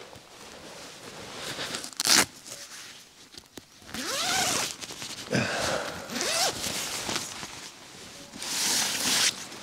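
Tent zips being pulled in several separate strokes while a wild-camping tent is being packed away: one short sharp pull about two seconds in, then longer pulls, two of them rising in pitch.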